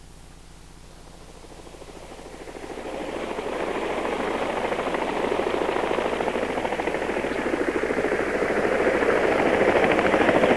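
Helicopter rotor sound effect played over a theatre's speakers: it fades in about two seconds in and builds to a steady, fast blade chop that grows a little louder toward the end.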